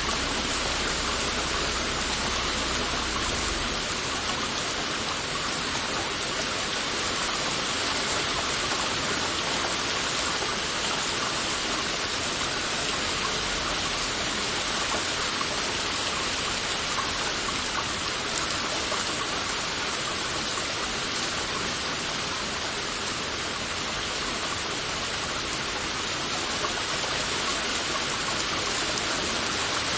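Heavy rain falling steadily, a dense even hiss of drops. A faint low hum underneath cuts off about three and a half seconds in.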